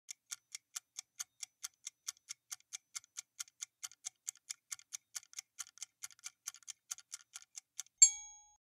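Clock-ticking countdown sound effect, about five quick ticks a second, then about eight seconds in a single bright chime that fades within half a second, marking the reveal of the correct answer.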